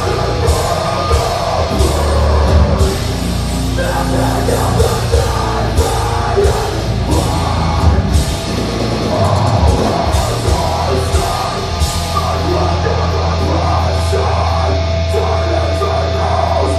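A deathcore band playing live through a loud PA: heavily distorted guitars and bass, pounding drums with cymbal crashes, and a vocalist shouting into the mic. The cymbal hits thin out about twelve seconds in, and a held low chord rings on.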